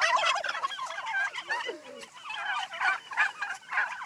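Turkeys calling: a quieter jumble of many short, warbling notes from several birds, with a loud gobble breaking in at the very end.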